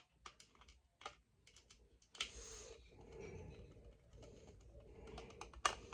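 Light plastic clicks and taps from handling a battery-powered toy train engine, then a faint steady noise from about two seconds in, with a few more clicks near the end.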